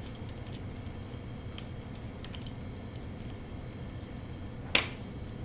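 Small metal clicks and taps of pliers working the spring clip of a bicycle chain connecting link onto its pins, with one sharp, louder click near the end.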